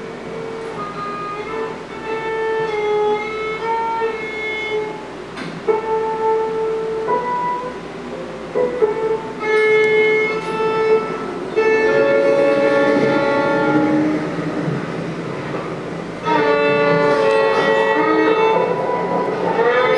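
Music with long held melodic notes, growing louder as it goes, with sudden steps up in loudness about twelve and sixteen seconds in.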